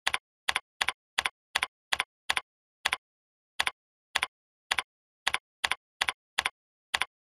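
Typing on a computer keyboard: about sixteen separate keystroke clicks at an uneven pace, each a short sharp double click.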